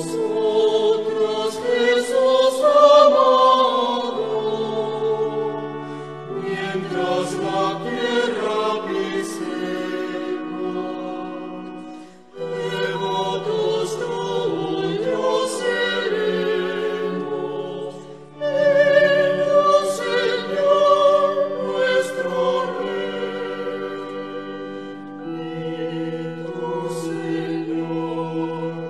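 Choir singing slow sacred music in long held notes, with short pauses between phrases about twelve seconds in and again about eighteen seconds in.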